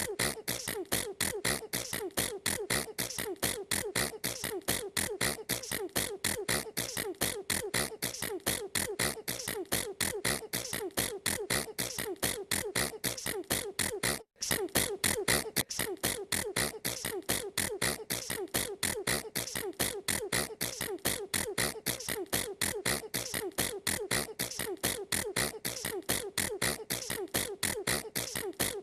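A girl's sneezes repeated in a rapid, evenly spaced run, about four short bursts a second, with one brief break about halfway through.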